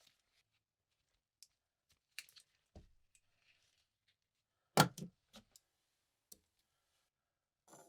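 A few scattered light clicks and taps, with one sharper knock about five seconds in.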